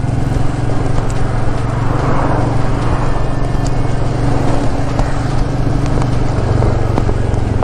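Motorcycle engine running at a steady speed while riding, a constant low hum under the rush of wind and road noise, which swells briefly about two seconds in.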